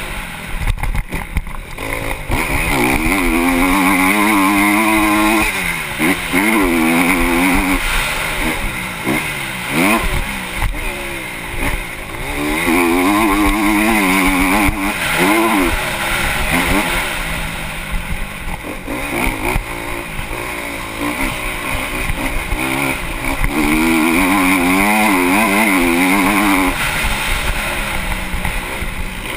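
Honda CRF250 motocross bike's four-stroke single-cylinder engine under hard riding, heard from the rider's helmet. The revs climb and fall back in several bursts of throttle, dropping between them for gear changes and corners.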